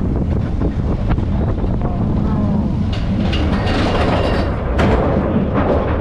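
Roller coaster train rumbling along its steel track with scattered clicks and knocks, wind buffeting the microphone.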